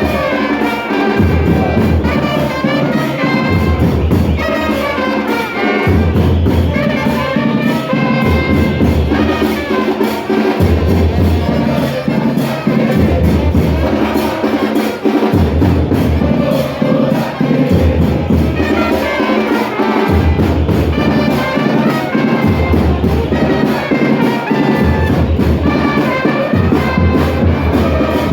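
Music with brass and percussion over a bass line that repeats a short pattern of notes every few seconds.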